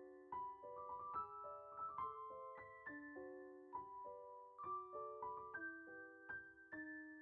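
Soft solo piano music, gentle notes and chords played at an unhurried pace, the final chord left ringing near the end.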